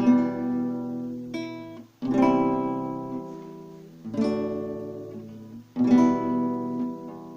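Acoustic guitar playing the song's intro: a chord strummed about every two seconds and left to ring out.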